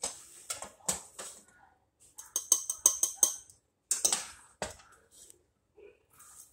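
A metal spoon scooping cooked rice from a stainless steel pot, scraping and clinking against the pot's side as the rice is knocked off onto a ceramic plate. There is a quick run of ringing metal clinks around the middle and sharper knocks a little later.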